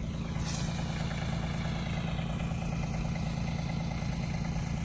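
An engine idling steadily, picking up slightly about half a second in and then holding an even low hum.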